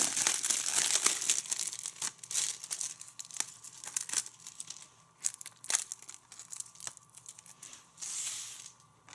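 Clear plastic shrink-wrap being torn and peeled off a Blu-ray case: dense crinkling and tearing for the first couple of seconds, then scattered sharp crackles, and one short crinkle burst near the end.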